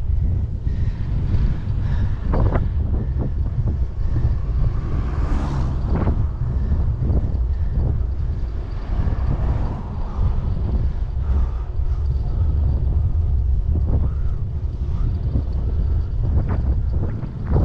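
Wind buffeting the microphone of a moving bicycle, a heavy steady rumble with scattered short knocks, and a brief swell of higher hiss about five seconds in.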